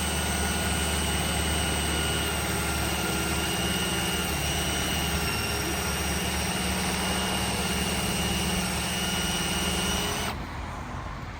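Electric drill running steadily with a high whine as it bores out the lock cylinder of a steel toolbox, then stopping suddenly near the end.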